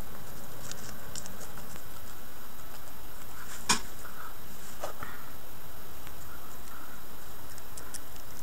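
Light handling noises over a steady hiss: small taps and paper rustles as paper and sandpaper discs are handled on a table, with one sharp tap about three and a half seconds in and a smaller one about a second later.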